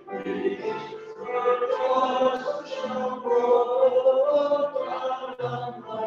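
Church congregation singing a hymn, with long held notes.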